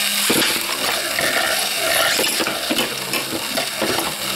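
Metal Beyblade spinning tops launched into a plastic stadium, scraping over the plastic and clattering against each other and the walls, with many small clicks over a steady gritty hiss. The clatter begins about a third of a second in, where a steady hum stops.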